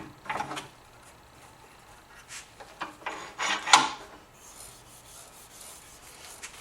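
A few short scraping and rubbing sounds of things being handled on a workbench, the loudest just before four seconds in. Then it goes quiet.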